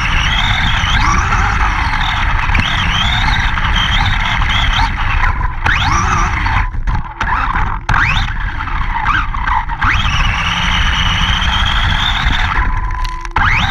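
RC monster truck driving fast over grass, heard from on board: the motor whines, rising and falling in pitch with the throttle and cutting out briefly a few times, over a constant rumble of the tyres and chassis.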